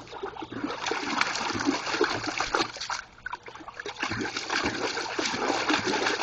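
A dog splashing and churning the water in a water barrel, digging for balls sunk at the bottom; the splashing is irregular and dies down briefly about three seconds in, then picks up again.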